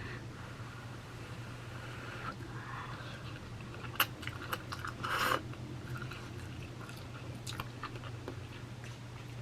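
A person eating instant ramen noodles: soft chewing and mouth sounds, a sharp click about four seconds in and a brief louder slurp about five seconds in, over a steady low hum.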